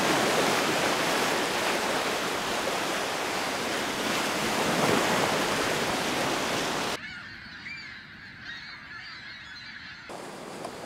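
Surf breaking and washing up on a beach. About seven seconds in it cuts off abruptly to a flock of gulls calling, many short cries over a quieter background.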